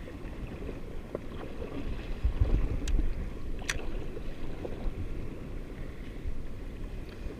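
Choppy water slapping and lapping against the hull of a drifting jet ski, uneven and low-pitched, with two sharp clicks near the middle.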